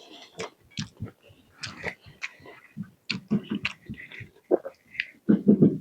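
A person eating close to the microphone: chewing and biting food, with short, irregular mouth clicks, louder near the end.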